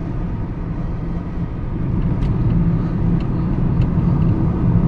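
Car driving at speed on an open highway, heard from inside the cabin: a steady engine and tyre rumble that grows a little louder about two seconds in.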